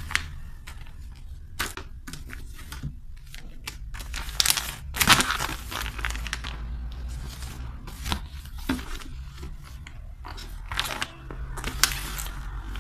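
Plastic file folders and papers rustling and crinkling as they are handled and pushed into a desk drawer, in irregular bursts with a few light knocks, the longest rustle about five seconds in.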